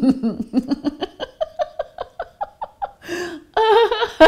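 A woman laughing in a quick, even run of short "ha" pulses, about five a second, with a sharp intake of breath about three seconds in and a louder burst of laughter after it. The laugh is set going on purpose from the belly.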